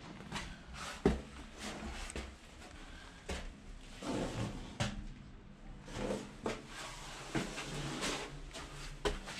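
Footsteps and scuffs on a concrete floor inside a small concrete bunker room: irregular knocks and shuffles, one sharper knock about a second in.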